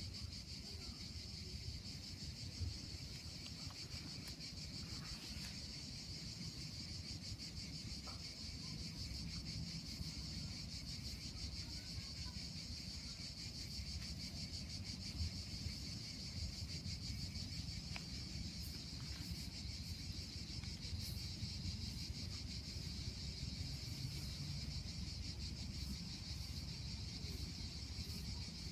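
Steady chorus of insects chirring outdoors: a continuous high buzz with a fine, rapid pulse, over a low, uneven rumble of wind on the microphone.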